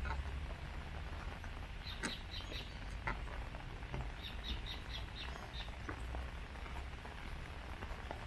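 Steady rain with scattered drops tapping, and a bird calling in two runs of short, high, quickly repeated notes, a brief one about two seconds in and a longer one of about seven notes about four seconds in.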